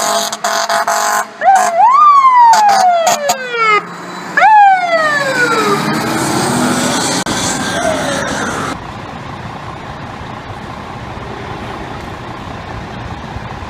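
Fire engine responding with its horn blaring, then its siren twice winding up quickly and sliding slowly down in pitch as it coasts. Partway through, the siren gives way to a quieter, steady rumble of truck engine and street traffic.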